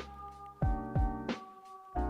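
Background music: a mellow beat with a sustained chord, kick and snare-like hits about twice a second.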